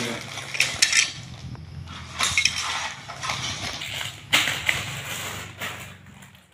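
Loose plastic Lego bricks clattering and clicking as hands rummage through a pile of pieces, with a few bursts of sharper clacks.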